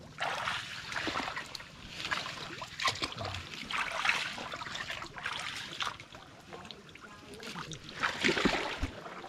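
Feet wading through shallow water and mud, sloshing and splashing in irregular steps, with the loudest splash near the end.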